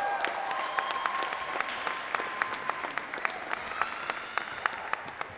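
Audience applauding, with a few voices cheering near the start. The clapping fades toward the end.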